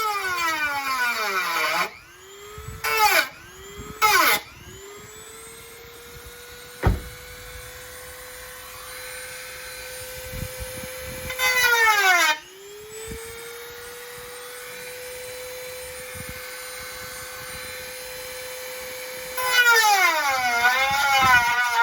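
High-speed electric cutting tool cutting through sheet metal: a steady motor whine that drops in pitch and gets louder each time the blade bites into the metal, then runs back up to speed when it is lifted off. This happens at the start, in a few short bursts in the first seconds, again about halfway, and near the end. There is one sharp click a third of the way in.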